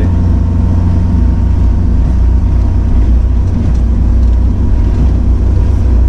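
Four-wheel drive driving along a rough dirt track: a steady, loud low rumble of engine and road, with a faint steady whine underneath.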